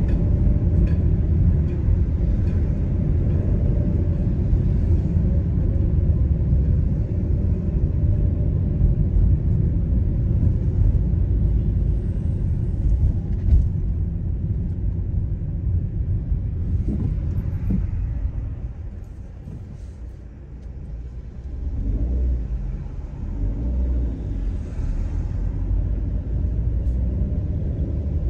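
Car engine and tyre rumble heard from inside the cabin while driving slowly in city traffic. The low rumble dies down for a couple of seconds about two-thirds of the way in, then picks up again.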